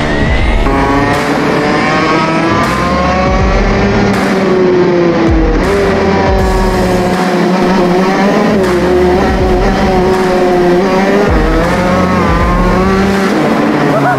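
Shifter kart's two-stroke engine driven hard around a cone course, its pitch repeatedly climbing and then dropping as it revs up and shifts or lifts for corners.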